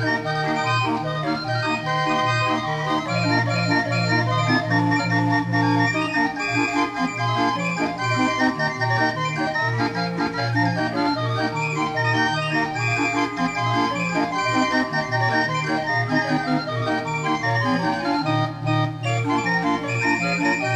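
Barrel organ (a Binche 'viole') playing a carnival tune: sustained pipe-organ notes, with a steady bass pattern under a running melody.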